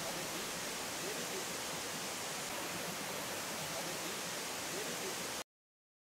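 Steady rush of a waterfall cascading over rock, cutting off abruptly about five and a half seconds in.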